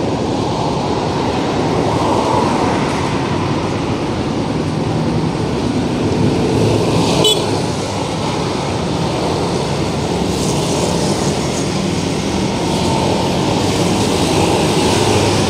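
Busy city road traffic: a steady rumble of engines and tyres as motor scooters ride past in the near lane. A short, sharp sound cuts through about seven seconds in.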